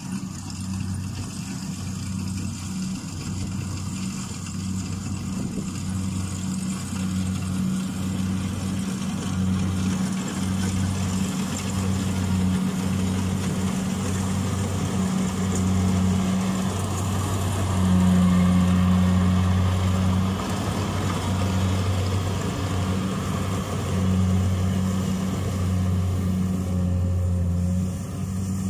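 Kubota DC-68G rice combine harvester's diesel engine running with a steady low hum, growing louder as the machine comes up and passes close by, loudest about two-thirds of the way through, then easing as it moves off.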